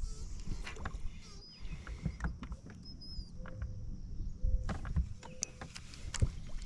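Scattered knocks and clicks of fishing gear being handled in a boat, over a low rumble, with a few brief steady tones.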